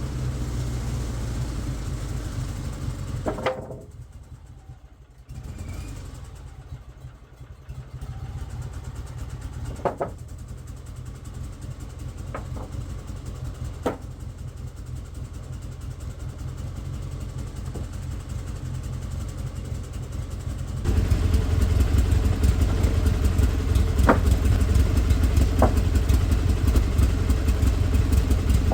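Portable sawmill's gas engine running, with a few sharp clunks along the way; about twenty seconds in it suddenly gets much louder and fuller.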